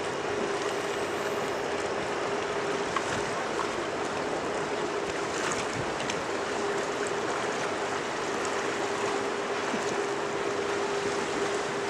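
A river boat's engine running at a steady cruise with a constant low hum, over a continuous wash of water noise.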